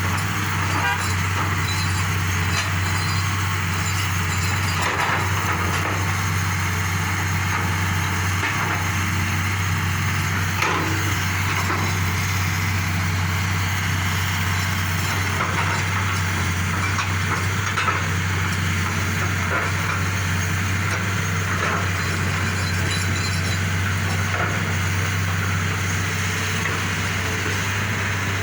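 Excavator's diesel engine running steadily under load, with a few scattered knocks and cracks as rock is broken.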